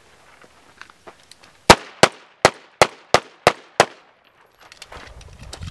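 Pistol firing seven shots in quick succession, about three a second, each a sharp crack.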